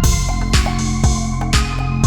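Electronic background music with a steady beat: a low kick about twice a second and a bright crash-like hit about once a second over sustained synth tones.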